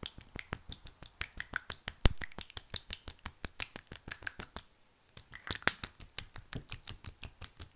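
Wet, oozy slime squished and worked in the hands, giving quick, irregular sticky clicks and pops, several a second, with a short pause a little past halfway.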